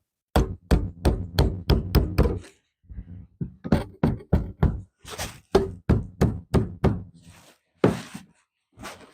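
Repeated hammer blows in two quick runs of about three strikes a second, then a few separate heavier knocks with a scraping rasp near the end.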